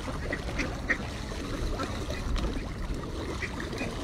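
A crowd of mallards and other ducks quacking and calling, many short calls overlapping, as they jostle for birdseed. A steady low rumble lies underneath.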